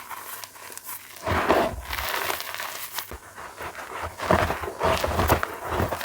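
Block of plain chalk being crushed. After about a second of quiet comes a run of irregular, crumbly crunches.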